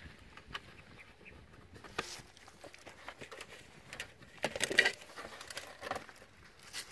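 Feet in rubber flip-flops stepping and scuffing on loose sandy soil, a run of small irregular crunches and pats, with a louder burst of scuffing about two-thirds of the way in.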